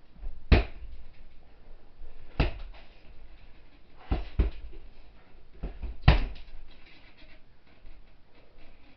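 Wrapped fists punching a hanging heavy bag: about six sharp thuds at uneven intervals, two of them in quick succession about four seconds in. The strikes stop for the last couple of seconds.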